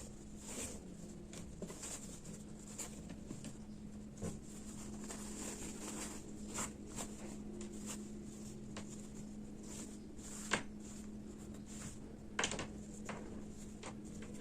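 Faint rustling and soft taps from cotton lining fabric being handled, over a low steady hum. A sharper tick comes about ten and a half seconds in.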